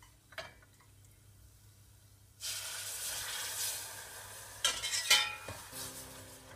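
Food going into a hot pan of fat and sizzling, starting suddenly about two and a half seconds in and slowly fading, with a utensil clinking against the pan near the end.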